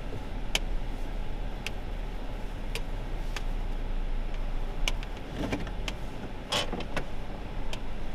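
Car cabin noise as the vehicle creeps forward to park: a steady low engine hum with scattered, irregular sharp clicks.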